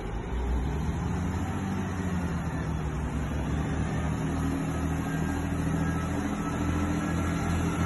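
Class 158 diesel multiple unit departing, its diesel engine running with a steady low drone.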